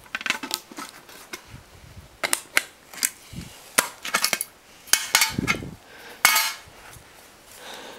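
Plastic clips snapping and the metal chassis and plastic parts of a Sony 3.5-inch floppy drive clicking and clattering as they are pried apart by hand: a string of sharp snaps and clicks, the loudest about five and six seconds in.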